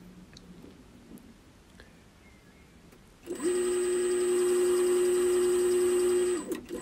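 Myford Super 7 metal lathe starting about three seconds in and running with a steady hum and a faint high whine, taking a thread-cutting pass in aluminium bar with a carbide single-point threading tool. It cuts out briefly near the end and starts again.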